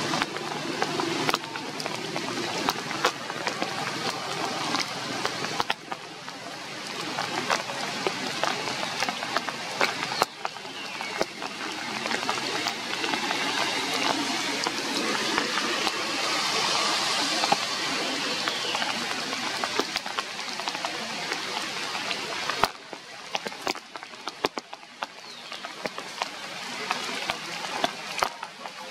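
Rain falling on tree foliage: a steady hiss dotted with sharp drip taps. It swells through the middle and drops back suddenly about three-quarters of the way through.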